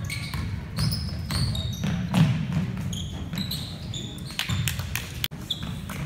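Basketball dribbled on a hardwood gym floor, its bounces mixed with short high squeaks of sneakers on the court.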